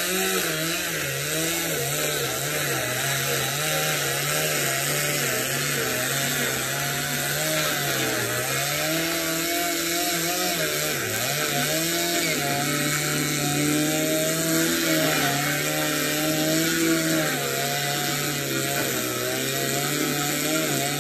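Two-stroke gas chainsaw cutting through a fiberglass boat hull, running continuously, its engine pitch wavering up and down as the chain bites and eases, over a steady hiss of cutting.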